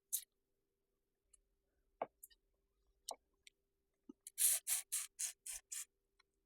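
Crawfish shells being cracked and peeled by hand while eating: scattered clicks and crackles, then a quick run of about seven sharp crackling sounds from about four seconds in.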